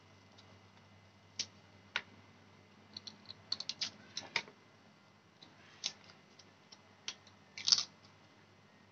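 Kitchen knife picking and scraping at the dry papery skin of a garlic clove, making scattered sharp clicks and crackles: a quick cluster around the middle and the loudest near the end.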